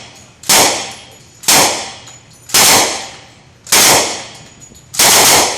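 Thompson submachine gun firing five short bursts of fully automatic fire, about one burst a second, each a few rounds of .45 ACP.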